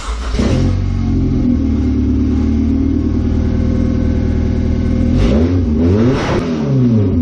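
Honda CR-V four-cylinder engine running on open headers: it catches right at the start and idles steadily. About five seconds in it is revved twice, the pitch rising and falling each time.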